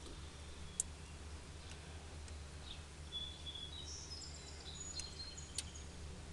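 Quiet outdoor background: a low steady hum with a few faint, short high chirps in the second half and a few faint ticks.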